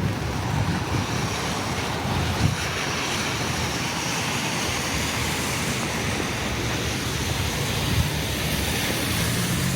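Wind buffeting the microphone, an uneven low rumble, over a steady rushing noise.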